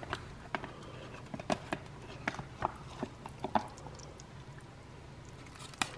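Spatula tapping and scraping against a plastic microwave tray and a ceramic plate as a serving of lasagna is lifted out: a string of light clicks over the first three or four seconds, then one more near the end.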